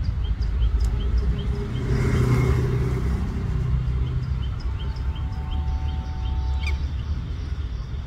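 Low, steady rumble of street traffic, swelling as a vehicle passes about two seconds in. A regular series of short, faint high chirps runs through it, and a held two-note tone sounds for about two seconds just past the middle.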